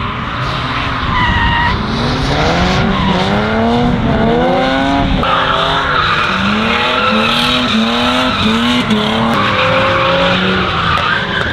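A drift car's engine revving up and down over and over as it slides through a corner, with tyre squeal that grows louder about five seconds in.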